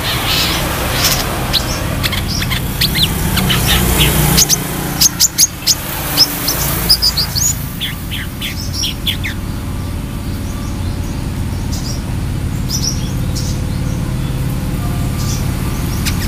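Brown-throated sunbird (kolibri kelapa) singing a fast run of short, sharp, high chirps, densest in the first half and then thinning to scattered notes. A steady low hum runs underneath.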